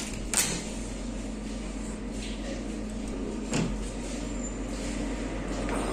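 Curtains being drawn back and a window being handled, giving two short clacks, one about half a second in and one about three and a half seconds in, over a steady low hum.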